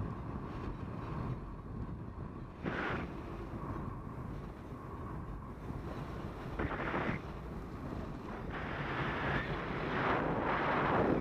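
Wind rushing over the camera microphone of a flying paraglider: a steady low buffeting that swells louder in gusts about three seconds in, around seven seconds, and most strongly near the end.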